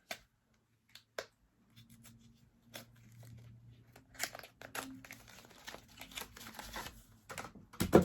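Product packaging being torn open and crinkled by hand: a few scattered clicks and taps first, then busier rustling and crinkling from about four seconds in, and a louder bump near the end.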